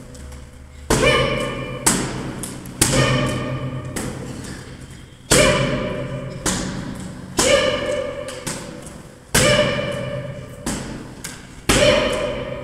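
Kicks and punches landing on hand-held focus mitts: about ten sharp smacks at uneven intervals of roughly one to two seconds, each with a ringing tail that fades.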